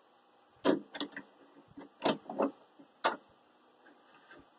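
Splash guard parts being handled and fitted onto a lapidary machine: about half a dozen sharp clicks and knocks over a few seconds.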